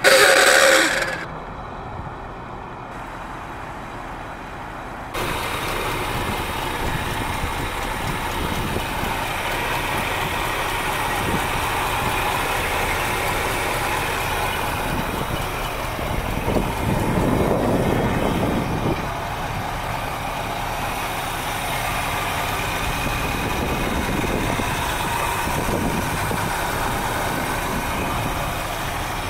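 A 302 cubic-inch V8 idling steadily, heard close-up from the open engine bay, with one brief swell in engine speed a little past halfway. It opens with a short loud clatter, and the engine sound steps up suddenly about five seconds in.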